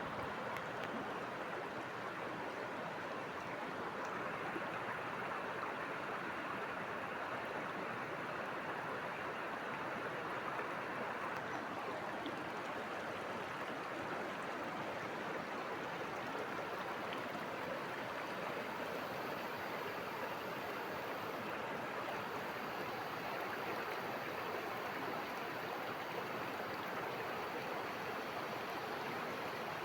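River water rushing steadily over rocks, a constant even rush.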